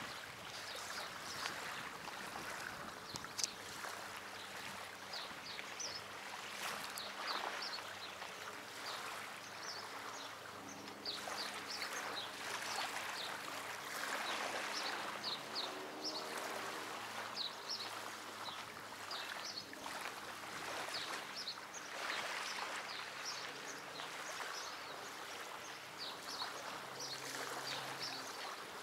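Water lapping and washing in gentle, uneven swells, with many short high-pitched chirps scattered throughout.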